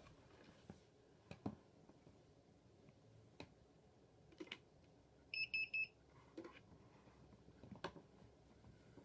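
A quick run of four short, high electronic beeps from a DJI Phantom 2 quadcopter that will not start its motors, among faint scattered clicks of handling.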